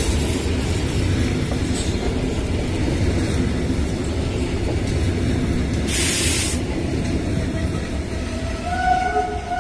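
Double-deck passenger train rolling past, the low rumble of its coaches' wheels on the track. A short hiss comes about six seconds in, and a steady tone begins near the end as the last coach clears.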